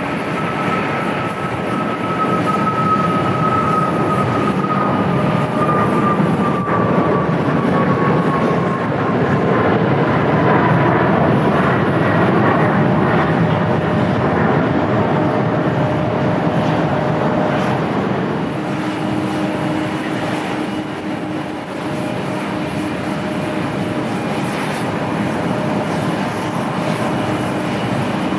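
Boeing 737 MAX 8's CFM LEAP-1B jet engines at takeoff thrust: a steady roar with a whine sliding down in pitch as the plane climbs away. About 18 seconds in, the sound changes abruptly to another jet's engines running steadily, with a lower whine.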